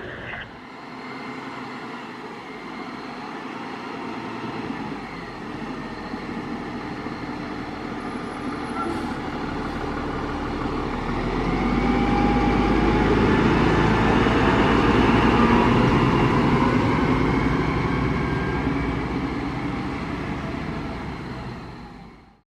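Fire truck's diesel engine running as the truck moves off, growing louder about halfway through and then fading away.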